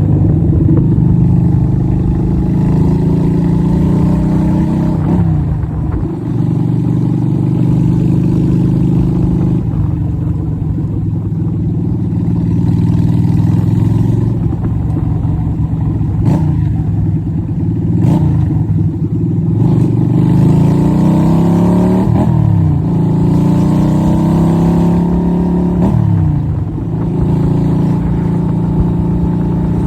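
Yamaha Virago XV250 V-twin engine with a straight-through exhaust, pulling under way on the road. Its pitch climbs slowly and drops sharply several times as it revs up and shifts up through the gears.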